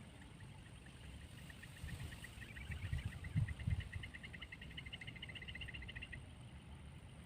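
An insect calling: a fast train of chirps that builds up and then stops abruptly about six seconds in, over a low background hum, with a couple of dull low thumps midway.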